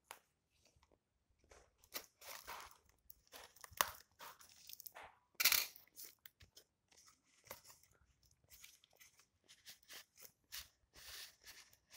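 Cardboard parcel wrapped in packing tape being cut and torn open by hand, with crinkling of paper wrapping: a string of irregular tearing and crunching noises, the loudest about five and a half seconds in.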